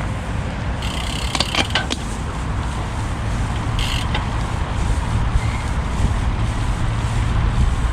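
Steady low rumble of wind and rolling noise from a road bike being ridden, with brief rattling clicks from the bike about a second in and again near four seconds.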